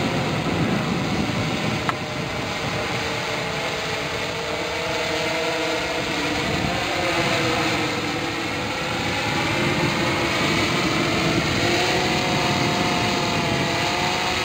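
Large octocopter hovering and flying overhead: its eight electric motors and propellers make a steady hum of several close pitches that waver as the rotor speeds change. A single sharp click comes about two seconds in.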